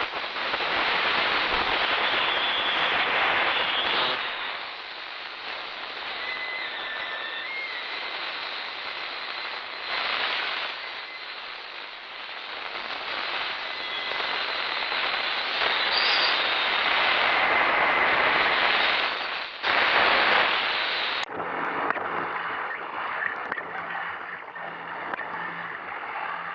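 Static from an old, malfunctioning radio: crackling hiss that swells and fades, with faint whistling tones drifting through it. About three-quarters of the way through it drops out for a moment, then comes back after a click, thinner and with a low hum underneath.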